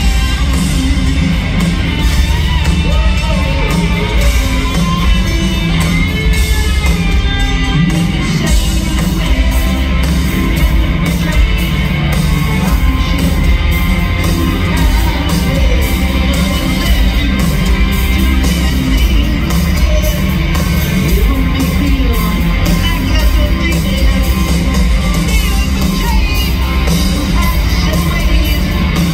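Live hard rock band playing loudly through a stadium PA, with a heavy bass and drum low end and a sung lead vocal, heard from the stands with the crowd shouting along.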